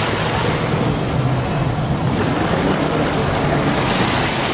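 Sea waves and wind noise on the microphone, with the engine of a jet ski running.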